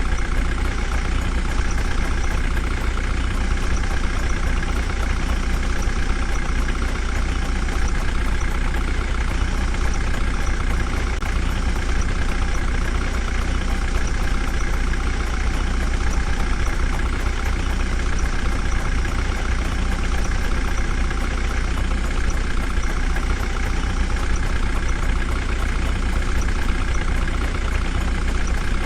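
Heavy diesel engine running steadily at a low, even idle, with a deep drone and no clear revving or pauses.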